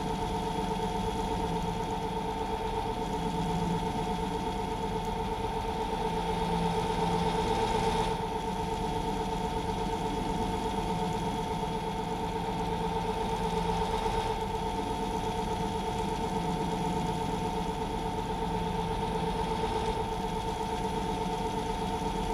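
Lathe motor and spindle running steadily while a tiny eighth-inch cutter mills a small keyway in a steel shaft. The cutting itself is barely heard under the machine's hum, which swells slightly twice as the work is fed back and forth.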